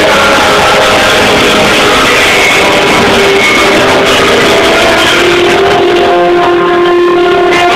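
Live rock band playing loud, with electric guitars to the fore. In the last few seconds the band holds sustained notes.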